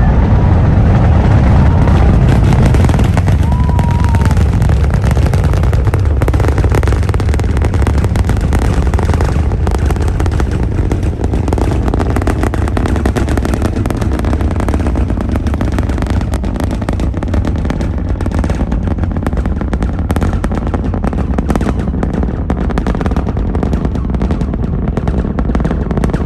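NASA Space Launch System rocket lifting off: a deep, continuous rumble from its engines and solid rocket boosters, overlaid with dense crackling that grows sharper in the later part.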